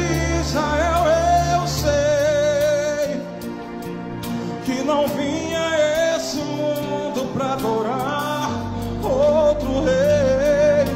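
A man singing a Portuguese gospel hymn over instrumental backing, holding long notes with vibrato.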